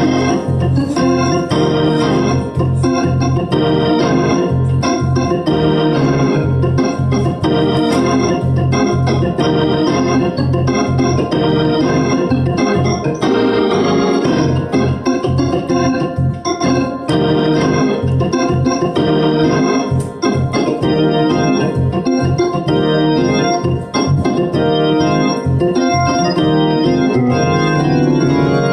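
Two-manual electric home organ played with both hands: quickly changing chords and melody over a held bass, continuous and loud.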